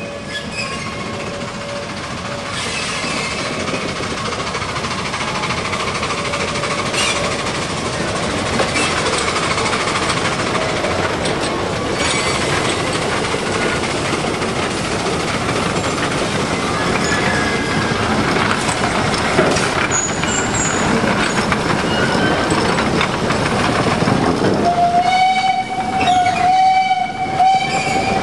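Shay geared steam locomotive working along the track, its steam exhaust and running gear growing louder as it nears and passes. Near the end its steam whistle sounds as one steady tone broken into several blasts.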